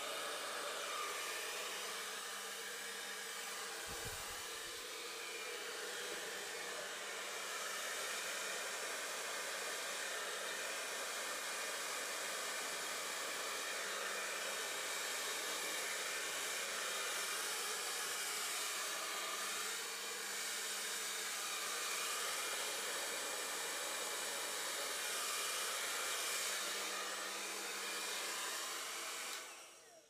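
Hand-held hair dryer blowing steadily, with a faint motor hum under the rush of air, cut off sharply near the end.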